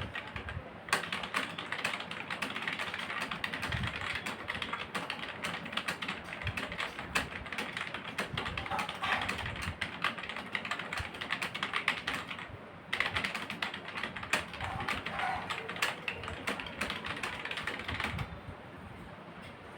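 Fast touch-typing on a computer keyboard: a rapid, continuous clatter of keystrokes. It breaks briefly about a second in and again about two-thirds of the way through, then stops shortly before the end.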